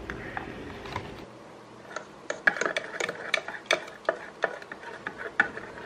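A metal straw stirring tea in a plastic mug, clicking lightly and irregularly against the mug's sides several times a second from about two seconds in.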